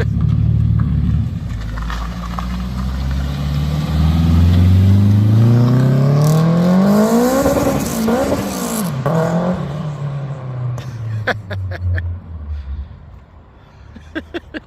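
Car engine held at steady revs, then accelerating with its pitch climbing for about five seconds before dropping away about eight seconds in. A few sharp clicks near the end.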